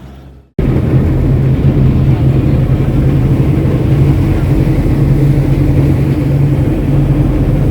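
Engine running with a steady low drone over a rushing noise, starting abruptly about half a second in.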